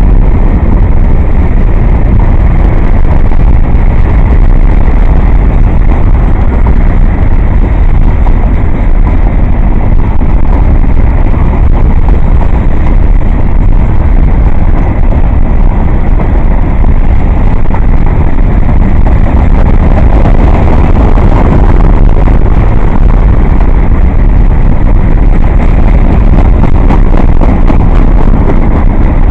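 Empty grain freight train rolling past, a loud steady rumble of steel wheels on rail.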